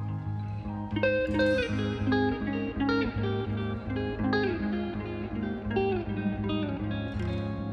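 Background music: a plucked guitar melody over a steady bass.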